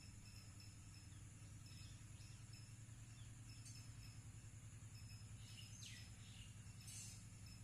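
Faint outdoor ambience: insects buzzing steadily with a short chirp repeating every half second or so, and a single bird call sweeping down in pitch about six seconds in, over a low steady hum.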